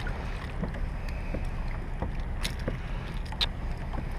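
Steady low rumble of wind and water around a sit-on-top kayak, with scattered small knocks and two sharp clicks a little under a second apart past the middle.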